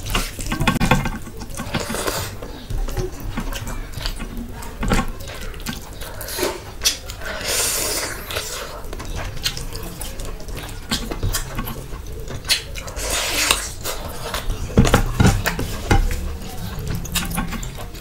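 A hand mixing rice with curry gravy in a steel plate: wet squishing, a few longer wet stretches, and many small sharp clicks of fingers and food against the metal.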